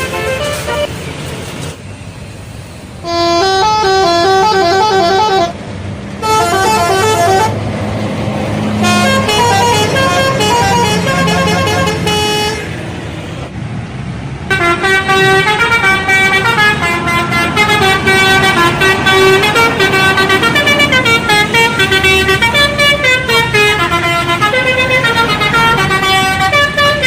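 Indonesian bus telolet horn: a multi-note air horn playing quick stepped melodies, first in short bursts and then in an unbroken run over the second half, with a bus engine running underneath.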